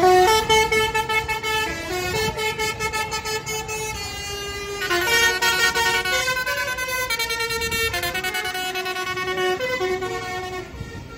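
A tractor's musical horn playing a tune of held notes, stepping from note to note, over the engines of passing tractors and their tyres on the wet road. The tune fades near the end.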